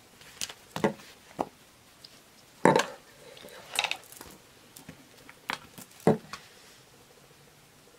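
Scattered clicks and clinks of beads and a handheld gemstone tester being handled, with the loudest knock a little under three seconds in.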